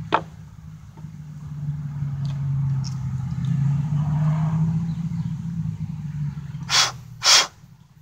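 A motor vehicle's engine running with a steady low hum that swells through the middle and fades out about six seconds in. A click comes at the start, and two short loud noises come near the end.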